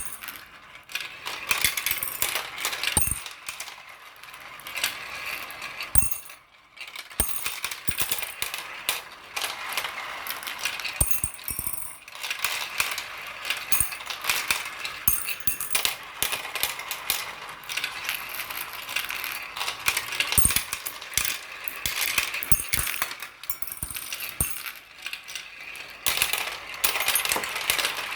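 Many marbles rolling and clattering down a marble run track, a dense stream of small clicks and knocks that thins out briefly about six seconds in.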